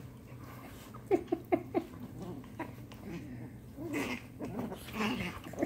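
Puppy yipping during rough play with a bigger dog: four short, sharp yips in quick succession about a second in, then softer whines and squeals near the end.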